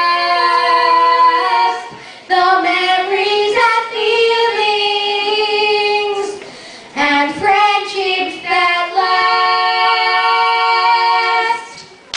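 Two children singing a song into microphones, long held notes in phrases with short pauses for breath; the last note fades near the end.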